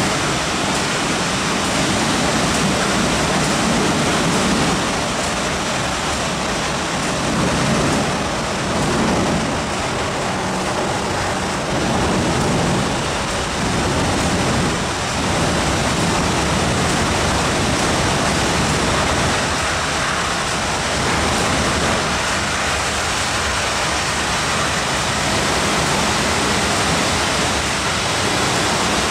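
MTR engineering train running through an underground station platform behind the screen doors: a steady, loud wash of noise with small swells.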